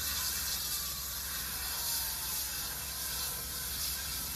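Fire hoses spraying water onto a burning gas fire: a steady, rushing hiss, with a low rumble underneath.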